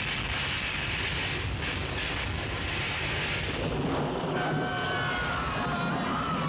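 Film earthquake sound effect: a dense, steady rumble and roar of shaking and crashing. A faint high wail comes in about halfway through.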